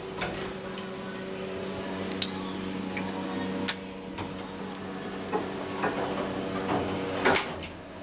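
Otis Series 1 elevator car with a steady hum, a few sharp clicks as the call button is pressed, and the doors sliding shut with a loud knock near the end.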